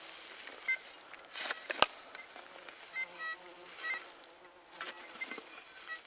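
Flies buzzing, with a single sharp knock just under two seconds in.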